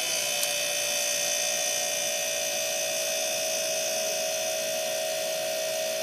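Outdoor refrigerator's compressor running with a steady hum and a thin high whine, with no groaning. This is the sound of it running normally and starting to cool after its start relay and thermal protector were replaced.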